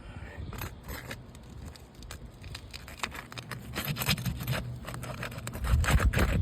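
Scraping and rubbing with many scattered clicks, and a heavier dull thump near the end.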